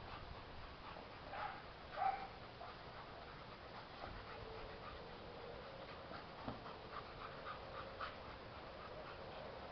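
Rottweiler whining faintly: two short whines in the first two seconds, the second louder, then a thin, drawn-out whine from about halfway with a run of soft, quick puffs of panting.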